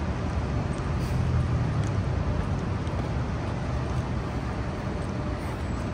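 City street traffic noise: a steady low rumble of passing vehicles, strongest in the first couple of seconds.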